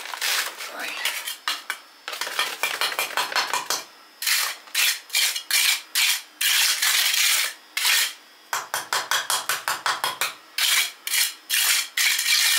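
Steel trowel scraping and clinking through wet lime and small stones in runs of quick strokes, as limecrete is worked down into a hole around rubble. The fastest run of strokes comes about two-thirds of the way through.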